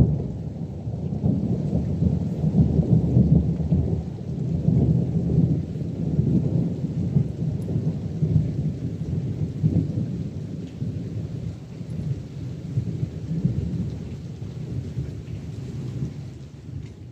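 Rolling thunder from a thunderstorm, rumbling continuously in swells, with rain hissing faintly, fading out near the end.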